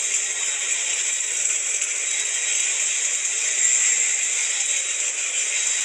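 Electric arc welding on a vertical (3G) joint: a steady, dense crackling sizzle of the arc as the bead is laid.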